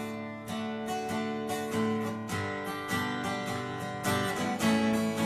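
Steel-string acoustic guitar, a cutaway Yamaha, strummed in a steady rhythm of chords as the introduction to a song, growing louder about four seconds in.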